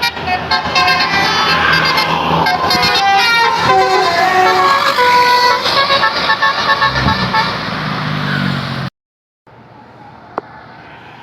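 A bus's basuri telolet horn, a set of multi-trumpet air horns, plays a fast melody of stepping notes over the bus engine. About nine seconds in the sound cuts off abruptly to much quieter background, with a single sharp click shortly after.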